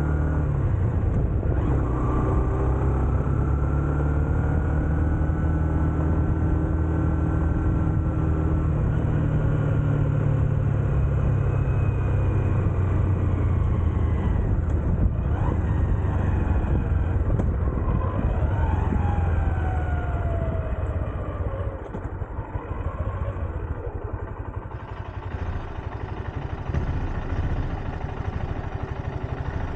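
Honda CB125F's single-cylinder 125 cc engine running on the move, its pitch rising and falling with the throttle. About two-thirds of the way through it drops to a quieter, lower note as the bike eases off.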